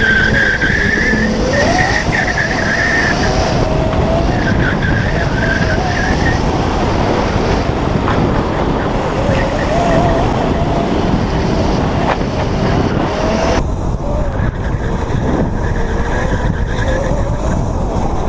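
Electric drift kart's motor whining, its pitch rising and falling with speed, while the tyres squeal in long stretches as the kart slides through the first several seconds and in shorter bursts later. A steady rumble of wind and road noise runs underneath.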